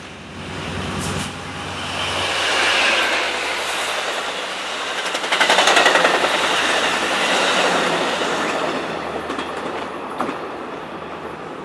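Amtrak Pacific Surfliner train passing close by at speed, an EMD F59PHI diesel locomotive leading bilevel coaches. The sound builds as the locomotive nears, and the cars' wheels clatter over the rails, loudest about halfway through. It fades near the end as the last car goes by.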